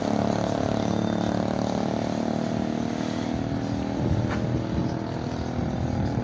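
A motor vehicle's engine running steadily close by.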